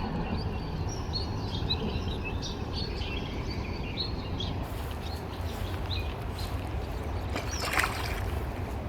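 Small birds chirping in quick, scattered calls over a steady low outdoor rumble, the chirps thinning out after about four seconds. A short noisy burst, the loudest moment, comes a little before the end.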